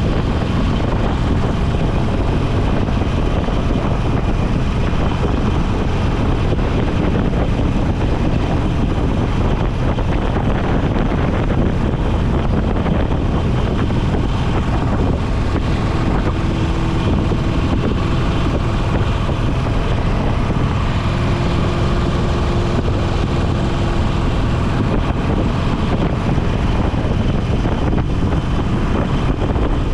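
Motorcycle engine running at a steady road speed, mixed with wind rushing over the microphone.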